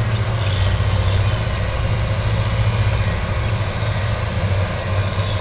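Diesel engine of a loaded earthmoving machine, one carrying dirt in its scoop, running steadily as it moves off, with a low rumble throughout.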